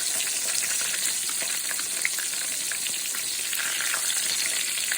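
Cornmeal-breaded green tomato slices frying in hot grease in a pan: a steady sizzle dotted with small crackling pops.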